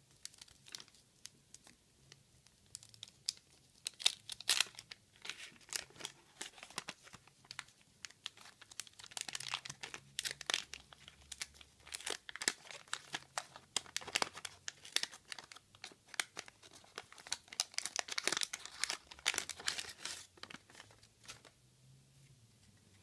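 Wax paper wrapper of a 1985 Garbage Pail Kids sticker pack being torn open and crumpled by hand. The sound is a rapid, irregular crackling that starts about a second in and is loudest around four seconds in and again near the end.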